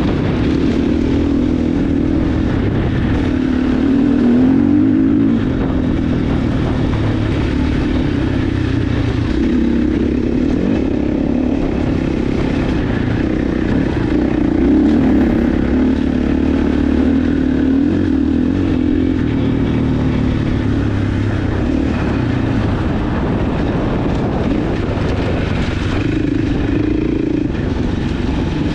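Dirt bike engine running continuously under load, its pitch rising and falling again and again with the throttle as the bike rides a trail.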